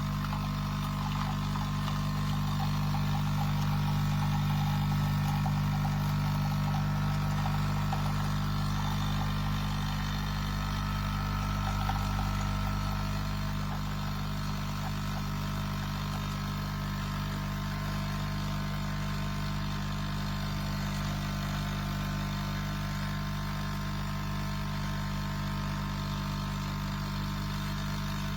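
Steady low mechanical hum that stays even throughout.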